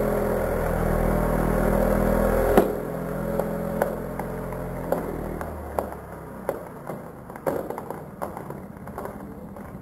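Chainsaw running at the base of a tree trunk, ending with a loud sharp crack about two and a half seconds in and then dying away. This is followed by a string of sharp cracks and snaps as the trunk's wood gives way and the tree starts to lean over.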